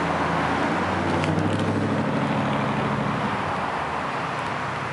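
Road traffic noise: a steady hiss with a vehicle engine's low hum that fades out about three seconds in.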